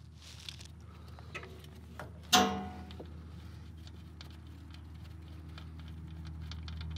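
Socket and ratchet on a Subaru Sambar KS4 manual transmission's fill plug: a few light tool clicks, then one loud metallic bang with a short ringing decay a little over two seconds in. It is typical of an over-tightened fill plug breaking loose.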